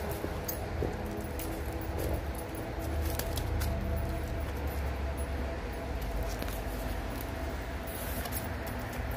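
Dogs and puppies feeding at raw fish scraps on a wooden stump: scattered small clicks and jingles over a steady low rumble.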